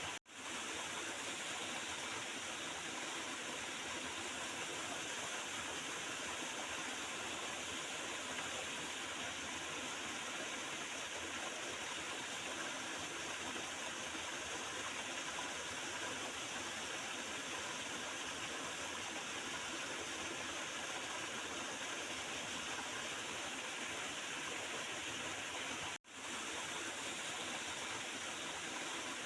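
Water of a small river gurgling and rushing steadily, an even hiss with no changes. It cuts out abruptly for an instant twice, just after it begins and a few seconds before the end.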